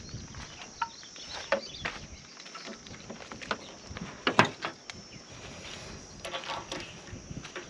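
Scattered clicks and knocks of gear being handled, the loudest about four and a half seconds in, over a faint steady high insect buzz.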